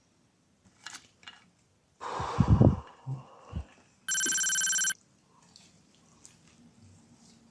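A loud muffled thump and rustle, then about a second later a steady electronic ringing tone lasting just under a second.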